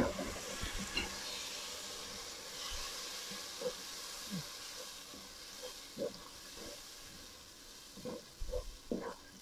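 Blended tomato sizzling and hissing in a pot of hot oil, ghee and fried onions, the sizzle dying down gradually after a sharp knock at the start. Near the end a wooden spoon stirs and knocks against the pot.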